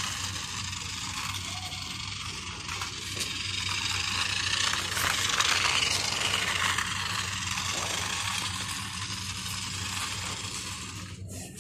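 Small battery-powered toy car running, its electric motor and plastic gears whirring and its wheels rattling over rough concrete, getting louder as it passes close about five to six seconds in.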